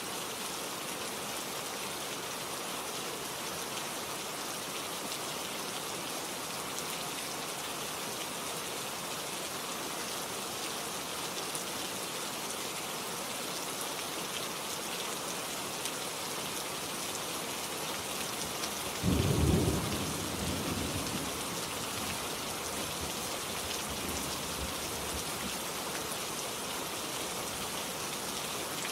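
Steady rain falling, with a single clap of thunder about two-thirds of the way through that rumbles and fades over a few seconds.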